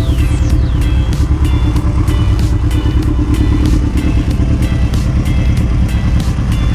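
Kawasaki KZ1000 MK2's air-cooled inline-four with a KERKER exhaust, running under way with a steady low rumble. Music with a beat plays over it.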